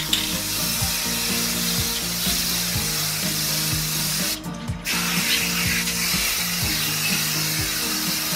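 Aerosol spray paint can hissing steadily as paint is sprayed, with a short break about halfway through. Background music plays underneath.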